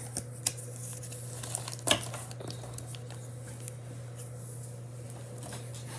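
Pokémon trading cards being handled and shuffled in the hands: soft rustling and faint clicks, with a sharper tap about two seconds in, over a steady low hum.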